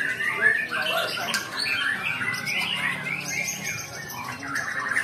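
Several caged white-rumped shamas (murai batu) singing over one another: a dense, unbroken mix of overlapping whistles, chirps and quick gliding phrases.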